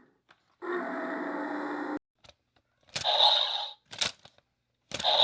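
Electronic sound effects from a talking toy's small speaker: a steady electronic tone that cuts off suddenly about two seconds in, then two short noisy bursts with a few clicks between them.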